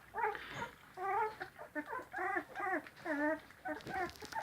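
Sprocker spaniel puppies whimpering and squeaking: a quick run of short high-pitched squeals, each rising then falling, about two a second.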